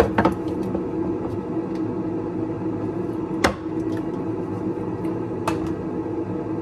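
A few sharp clinks and knocks of glass food-storage containers and their lids being handled and set down on a wooden board, the loudest about three and a half seconds in, over a steady hum.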